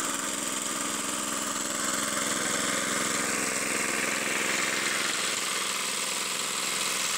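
Small petrol engine running steadily at constant speed, driving a chakki that grinds chickpeas into sattu flour.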